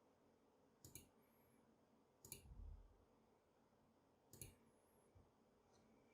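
Single keystrokes on a HyperX Alloy Origins Core mechanical keyboard: four separate faint clicks, spaced a second or more apart, the second with a short low thud after it.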